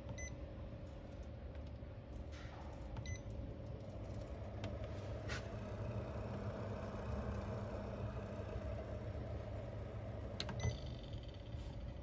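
Liebherr fridge's electronic control panel giving three short beeps as its buttons are pressed: one at the start, one about three seconds in and one near the end. A steady hum runs underneath.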